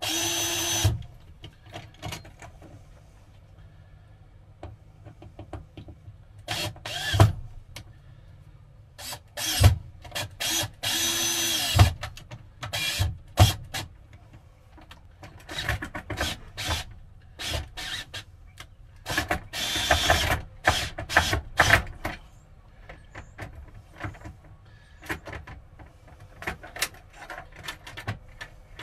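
Cordless drill/driver running in a few short bursts as it drives screws for a metal folding-table bracket, about a second at the start, again around 11 seconds in and around 20 seconds in. Between the runs come scattered clicks and knocks of the bracket and tools being handled.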